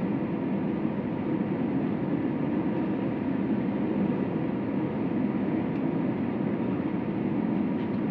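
Steady cabin noise of an Airbus A321 airliner: engine and airflow noise with faint steady tones over it, even throughout with no bumps or changes.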